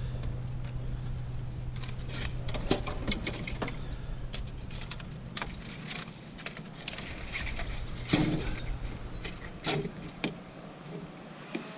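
Scattered knocks and clicks of scrap metal being handled, the strongest a few seconds apart near the middle and end, over a steady low hum that fades away in the last few seconds.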